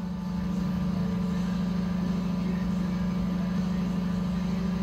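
A steady low machine hum that holds at one level, with no change in pitch.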